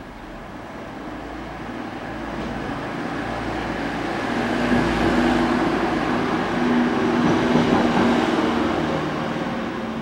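A motor vehicle passing by, its engine and road noise swelling to a peak about five to eight seconds in, then fading away.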